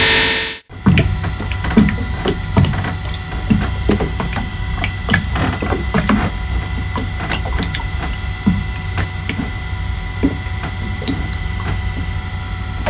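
Irregular sharp cracks and knocks, a few each second and of varying strength, over a steady low hum with faint steady tones; they begin suddenly just after a loud engine-like noise cuts off about half a second in.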